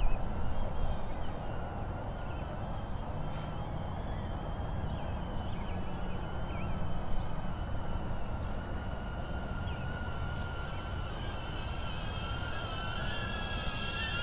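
DJI Avata FPV drone's propellers whining with a steady, slightly wavering pitch over wind rumble on the microphone; the whine grows louder near the end as the drone comes in close.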